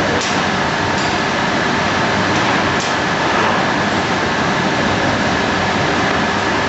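Steady machine drone and hiss of radio-frequency plywood-bending presses and their generator running, with a faint steady whine and a few light clicks.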